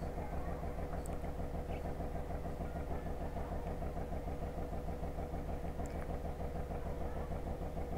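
An engine running steadily at idle in the background, an even, unchanging drone. A few faint light clicks of metal parts being handled sound over it.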